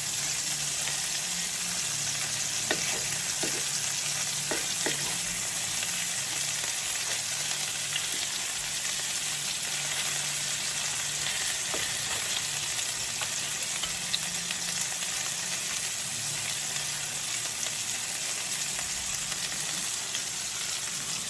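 Homemade meatballs browning in a frying pan: a steady sizzle, with a few faint clicks.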